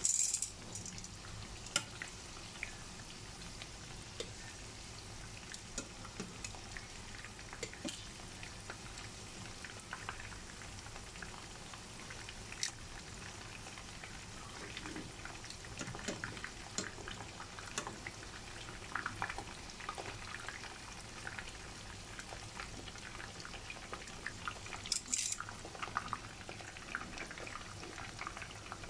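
Battered pork chops frying in a pan of oil: a steady sizzling hiss with scattered pops and crackles. Two brief louder bursts, one at the start and one about 25 seconds in.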